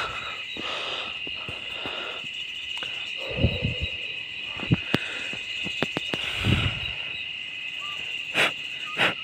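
Steady chorus of crickets. Two low, breathy swells come about three and a half and six and a half seconds in, with a few short sharp clicks between them.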